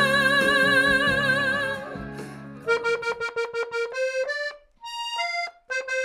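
A woman's sung note, held with vibrato over a backing band, fades out about two seconds in. Then a piano accordion plays a quick phrase of short, detached notes with brief gaps between them.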